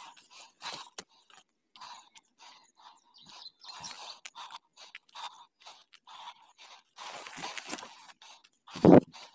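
Footsteps crunching irregularly on a dry gravel-and-dirt footpath through dry grass, with one much louder, lower short sound near the end.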